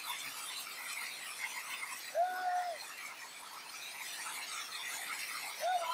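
Hailstones pelting a paved street and tiled pavement, a dense, steady patter of small ice impacts. Twice a short high squeal cuts through it, about two seconds in and again near the end.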